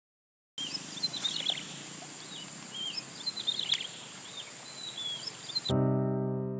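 Insects buzzing steadily at a high pitch, with birds chirping in short repeated calls, in outdoor riverside ambience. It starts after a moment of silence. About five and a half seconds in, louder piano music cuts in and takes over.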